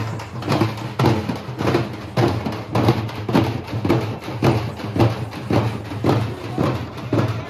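Drums beaten hard in a fast, steady rhythm, about three to four strokes a second.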